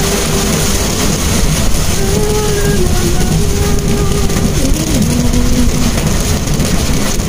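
Inside the cabin of a Mitsubishi Mirage driving on a wet road in the rain: a steady rumble of engine and tyres under a hiss of rain and spray. A held tone shifts in pitch a few times and steps lower about two-thirds of the way through.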